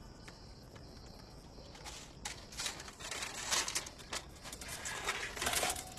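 Soft, irregular rustling and scuffing of a person moving about, starting about two seconds in.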